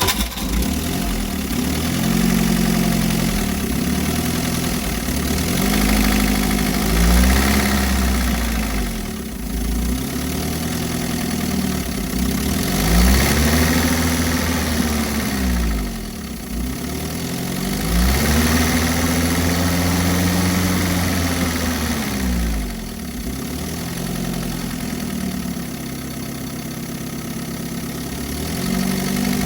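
UAZ's UMZ-4213 four-cylinder petrol engine revved up and down about seven times. A knock of unclear origin comes and goes, with oil pressure and oil level normal.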